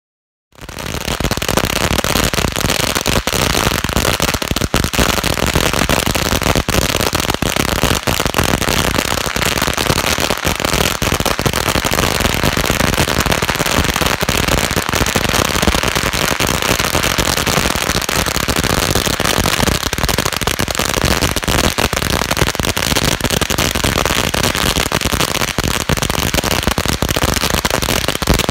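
A long string of firecrackers (a Shogun 8000-count roll) going off in a continuous rapid crackle of bangs, starting abruptly about half a second in and keeping up without a break.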